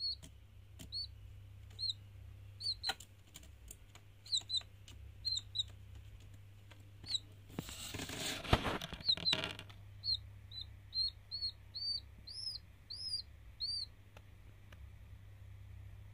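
A lone chick peeping: short, high, arched cheeps repeated through the whole stretch, coming faster and louder about two-thirds of the way in. Light taps of pecking are scattered among them, and there is a burst of rustling about halfway through.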